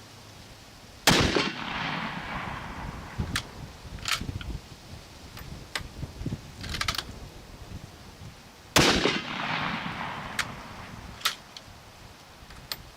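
Two full-power rifle shots from a reproduction M91/30 PU Mosin-Nagant sniper rifle in 7.62x54R, about eight seconds apart, each followed by a long fading echo. Between them come several short sharp clicks as the bolt is worked.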